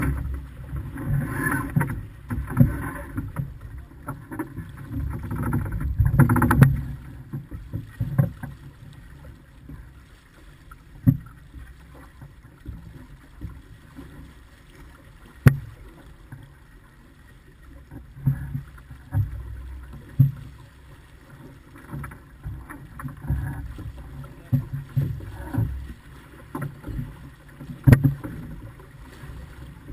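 Wind buffeting and water rushing along the hull of a small sailing yacht under way, a low rumbling noise that is heavier for the first several seconds and then eases. A few sharp knocks break through it, about eleven, fifteen and twenty-eight seconds in.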